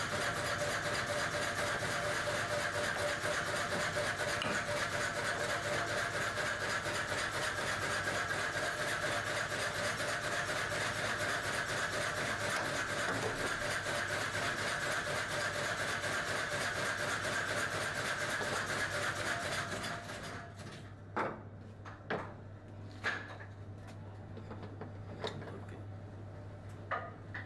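Workshop machine motor running steadily with a fast, even rattle over a low electrical hum; about twenty seconds in it stops, leaving the hum and a few sharp clicks.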